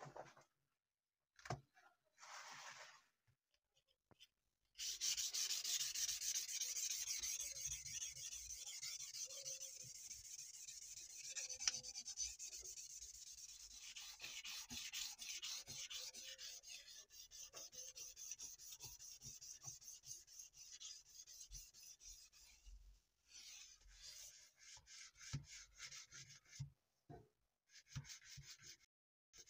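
Sandpaper rubbed by hand over a knife blade: a dry, scratchy hiss of rapid back-and-forth strokes starting about five seconds in, breaking into shorter, separate strokes in the last few seconds.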